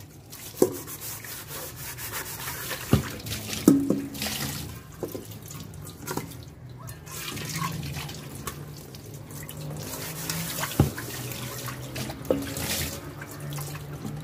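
Kitchen tap running and splashing into an aluminium pot and a stainless steel sink as the pot is scrubbed with a sponge and rinsed. A few sharp knocks of the pot are heard, two close together a few seconds in and two more near the end.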